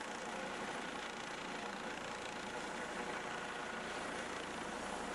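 Airbus EC155 twin-turbine helicopter hovering: a steady rush of main-rotor and engine noise.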